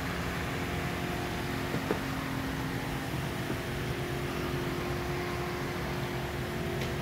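Steady mechanical hum of indoor room tone, with a few faint steady tones in it and a small click about two seconds in.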